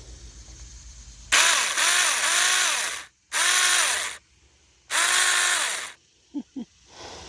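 Saker 4-inch cordless electric mini chainsaw run in three short bursts, its motor whine spinning up and winding down each time, to clear debris from the chain. Two brief chirps follow near the end.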